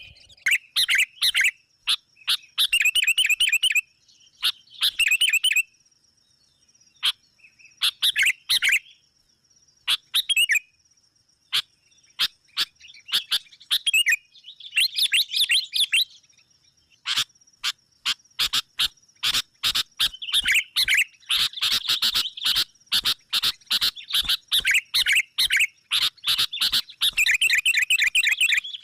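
Sooty-headed bulbuls calling over and over in bursts of rapid chattering notes. The calls come in clusters with short gaps at first, then turn into nearly continuous chatter in the second half. This is the excited, quarrelsome calling used as a lure call to draw in rival bulbuls.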